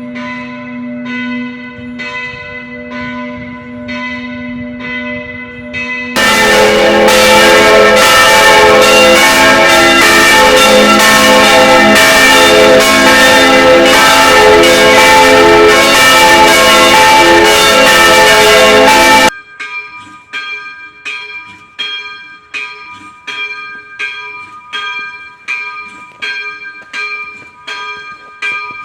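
Church bells ringing, in three takes joined by abrupt cuts: evenly spaced strokes at first, then from about six seconds in a much louder, dense clamour of several bells ringing together, which cuts off suddenly about two-thirds through to a different bell striking at an even pace.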